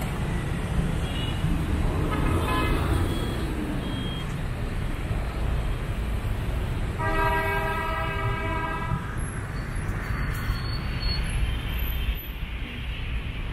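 Steady city street traffic, with a vehicle horn held for about two seconds midway and a fainter honk about two seconds in.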